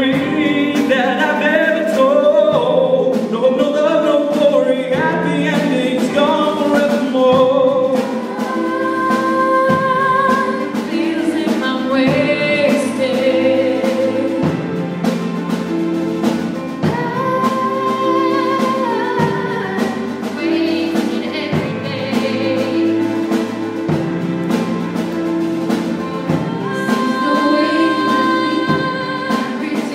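High school show choir singing into handheld microphones: mixed voices in close harmony, with long held chords over a bass line and drums.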